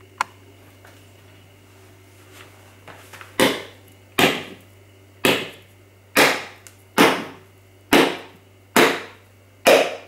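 A whole coconut being knocked against a tiled edge to crack its shell along the equator: eight sharp knocks about one a second, starting a few seconds in.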